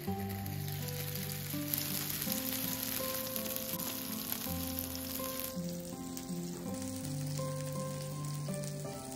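Pan-fried xiaolongbao soup dumplings sizzling in oil in the dimpled plate of an uncovered electric hot plate; the sizzle gets quieter about five and a half seconds in. Soft background music with plucked notes plays throughout.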